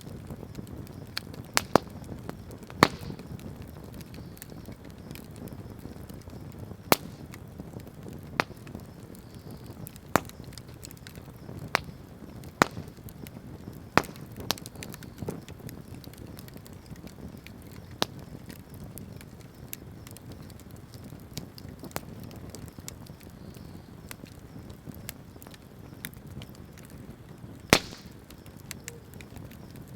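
Wood bonfire burning with a steady low rumble, crackling throughout with sharp pops at irregular intervals, about a dozen of them loud.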